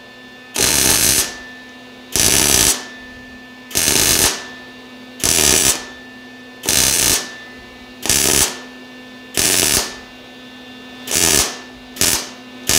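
MIG welder laying a stitch weld in about nine short bursts of arc, roughly one every second and a half, quicker and shorter near the end. Each dot is struck on top of the one before it to bridge a wide gap in the seam.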